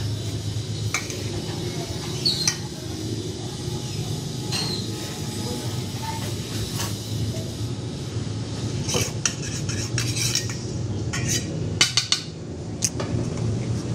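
Raw chicken pieces being mixed by hand in a stainless steel bowl as a coating is tipped in from a plate, with sharp metallic clinks against the bowl, most of them close together near the end. A steady low hum runs underneath.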